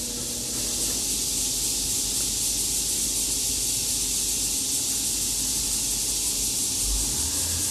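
Steady high-pitched hiss of background noise with no distinct events.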